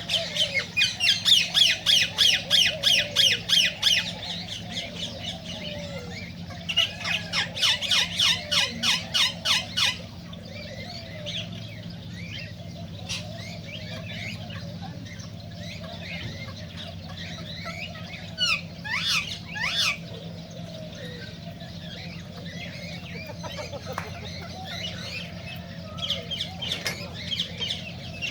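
Cockatiels calling: two runs of loud, rapidly repeated squawking calls, about four a second, in the first ten seconds, then softer chirps and a few whistled glides, with calling picking up again near the end.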